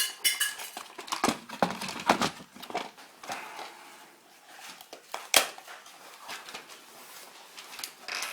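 Irregular clicks, knocks and rattles of a plastic landline phone casing being pulled apart by hand, with loose steel screws clinking. The sharpest knocks come at the start and about five seconds in.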